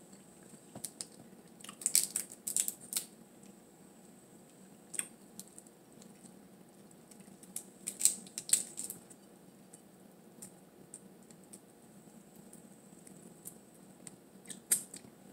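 Close-up eating sounds of blue crab being picked apart by hand and eaten: crackly clicks of shell and mouth, in two clusters about two seconds and eight seconds in, with a few single clicks between.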